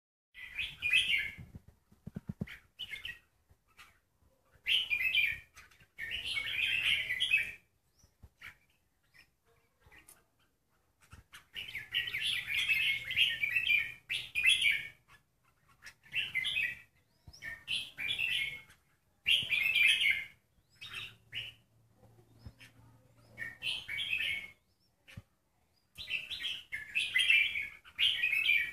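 Caged red-whiskered bulbul singing: short, bright chirping phrases of a second or two, repeated again and again with brief pauses between them.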